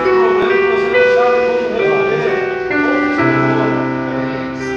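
A small church ensemble playing a slow hymn: electric keyboard holding sustained chords that change every second or so, with a wavering melody line on top. A low bass note comes in about three seconds in.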